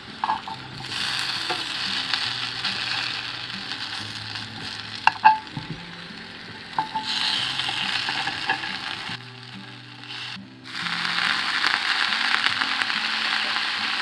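Sliced potatoes shallow-frying in oil in a cast iron skillet, sizzling loudly in three surges: about a second in, around seven seconds and again near the end, as the slices are turned with a wooden spatula and a fork. A few sharp clicks of the fork on the pan about five seconds in.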